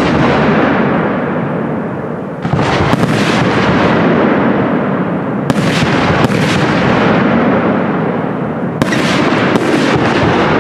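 Aerial firework shells bursting in quick succession: six sharp bangs in three close pairs, about three seconds apart, each trailing off in a long rumble.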